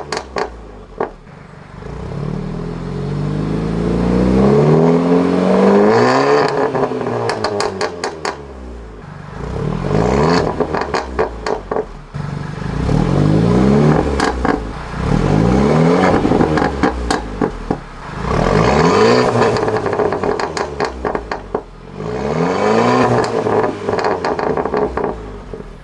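Exhaust of a 2015 Mercedes-Benz CLA250's turbocharged four-cylinder, on a stage 2 tune with a downpipe and Armytrix cat-back exhaust, revved up about six times. Each time the revs fall back, the exhaust gives a run of sharp pops and crackles.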